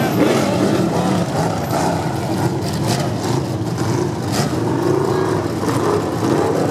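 Several IMCA stock cars' V8 engines running at low revs with an occasional wavering rev, the cars slowed or stopped under a red flag.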